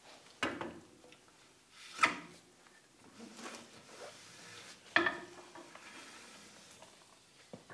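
Ford Super Duty front axle shaft being slid back through the steering knuckle into the axle housing: metal scraping and a few clunks as the steel shaft goes in, the loudest about two and five seconds in.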